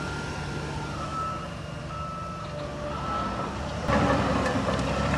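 Reversing alarm on heavy earth-moving machinery beeping about once a second, over a diesel engine running. About four seconds in, the engine gets suddenly louder.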